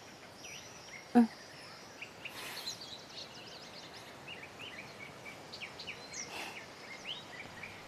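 Faint outdoor ambience of small birds chirping, many short high chirps scattered throughout, with one brief, louder pitched sound about a second in.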